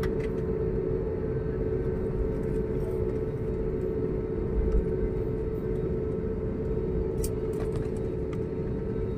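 Jet airliner taxiing on the ground after landing, heard inside the cabin: a steady low rumble from the engines and wheels under a constant hum, with a soft bump about halfway and a faint click near the end.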